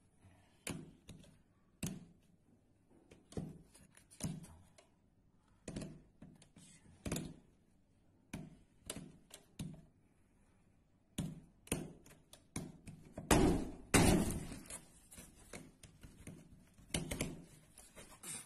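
A charger plug pushed into and pulled out of a wall socket over and over, each one a sharp click or knock about once a second. Partway through comes a louder, rougher crunching crash as the wall beside the socket is broken through.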